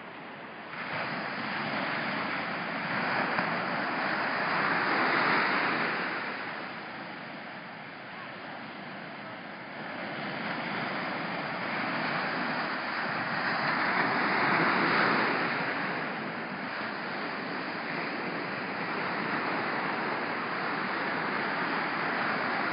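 Small ocean surf washing up on a sandy beach, a steady rush that swells twice as waves break, with some wind noise on the microphone.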